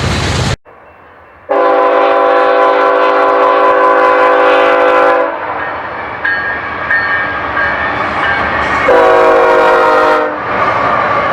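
BNSF diesel freight locomotive's air horn sounding a multi-note chord: a long blast of about four seconds, then a shorter blast later on, over the rumble of the passing train. Loud train noise cuts off abruptly about half a second in, just before the first blast.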